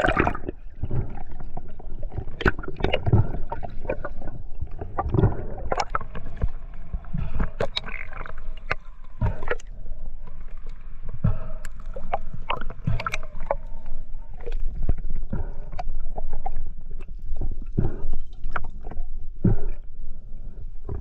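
Water sloshing and gurgling around the microphone, with a low rumble and many irregular sharp knocks and clicks.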